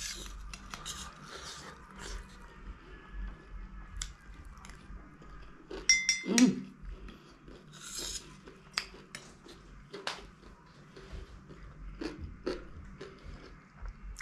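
Close-up crunching and chewing of chatpate, a spicy puffed-rice snack, in many short crackles. A steel spoon gives a brief metallic clink against the plate about six seconds in.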